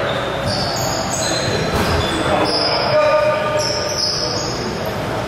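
Pickup basketball on a hardwood gym court: the ball bouncing and sneakers squeaking in short, high bursts, in an echoing gym hall.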